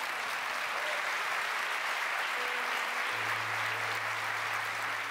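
Congregation applauding steadily, with a low held tone coming in about three seconds in.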